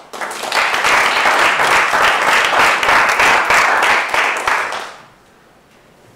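Audience applauding: a few single claps, then dense clapping from many hands that fades out about five seconds in.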